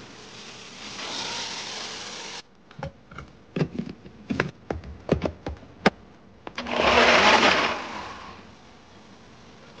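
Cooking sounds in an Instant Pot: a steady hiss that cuts off suddenly, then a run of sharp clinks and knocks of a utensil against the metal pot, then a loud hiss lasting about a second and a half.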